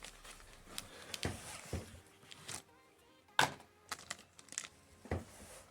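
Scattered clicks and light knocks of an M.2 NVMe SSD and its packaging being handled, the sharpest about three and a half seconds in, with faint background music entering partway through.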